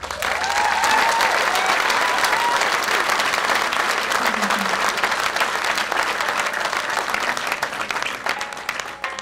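Concert audience applauding with cheers and a few calls in the first couple of seconds, between songs. The clapping thins out near the end.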